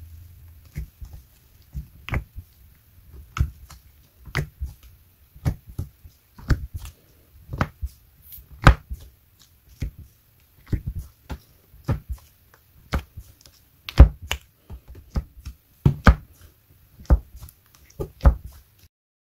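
Fingers pressing and squishing slime in a tub, making sharp wet pops and clicks about once or twice a second as pockets of air are squeezed and burst. The pops come singly or in quick clusters and stop shortly before the end.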